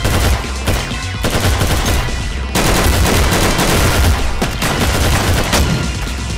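Rapid automatic gunfire sound effects, a dense stream of shots that is heaviest from about two and a half seconds in until near the end, over fast electronic music.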